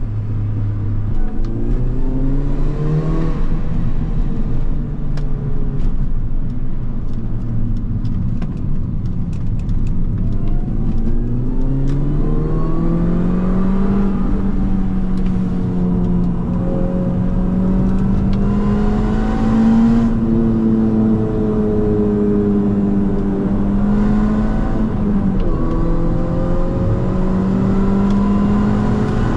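Mini John Cooper Works GP (R53) with its supercharged 1.6-litre four-cylinder accelerating hard on the Autobahn. The engine note climbs and drops back at several upshifts, then rises slowly in a high gear at speed, over steady road and wind noise.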